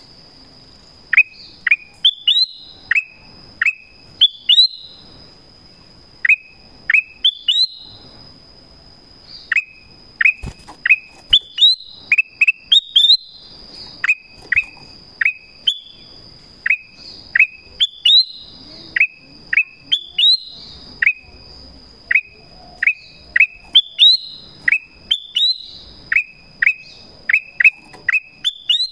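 Black-crested bulbul (kutilang emas) calling repeatedly: loud, sharp, quick falling notes in clusters of two to four, about one cluster a second, with short pauses between runs.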